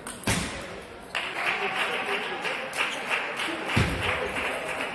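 A sharp knock about a quarter second in, then spectators clapping from about a second in, with a low thud a little under four seconds in.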